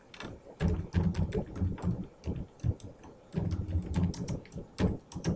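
Typing on a computer keyboard: quick runs of keystrokes in two bursts, with a short pause between them.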